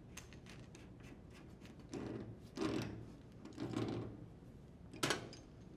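Faint rubbing and scraping in three short bouts, then a sharp click about five seconds in: the washer's hot and cold water supply hoses being threaded back onto the inlet valve by hand.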